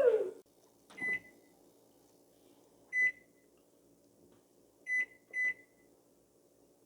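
Microwave oven's control panel beeping: four short, high electronic beeps, single ones about a second and three seconds in and a quick pair near the end, over a faint steady hum. The beeps show the microwave has power again after its repair.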